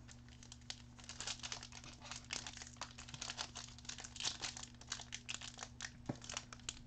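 Foil wrapper of a trading-card pack being crinkled and torn open by hand: a dense, irregular crackle of foil.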